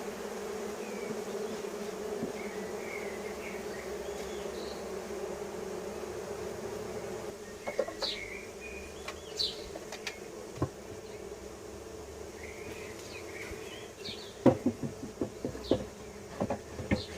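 Honeybees buzzing around an open Langstroth hive, a steady hum. From about halfway, sharp knocks and clicks as the hive's frames are handled, coming thick and loudest near the end.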